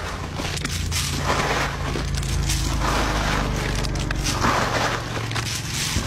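Steady rushing noise with a low hum beneath it and a few faint crackles.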